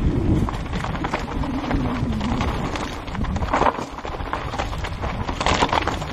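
Mountain bike descending a loose, rocky trail: tyres crunching over stones and the bike rattling with many short sharp knocks, over steady wind rush on the helmet-mounted microphone.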